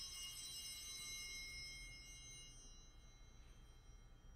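A single altar bell's ring dying away, several clear high tones fading out over about three seconds. It is the consecration bell rung at the elevation of the chalice.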